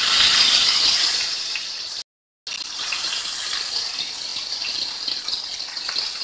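Hot oil sizzling as stuffed brinjals are laid into the pan to fry. The frying is loudest in the first second as they go in, cuts out briefly about two seconds in, then carries on steadily.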